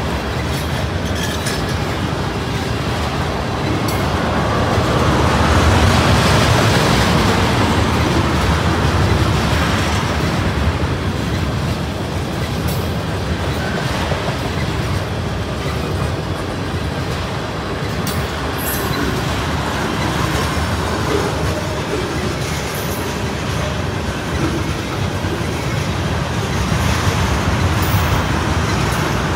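A long string of railroad tank cars rolling past, a steady rumble of steel wheels on rail with scattered clicks as the wheels cross the rail joints.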